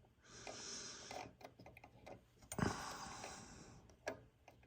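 Faint clicks and light scraping of a ceramic tube socket handled against a sheet-metal radio chassis while it is test-fitted into its hole. The sharpest click comes about two and a half seconds in.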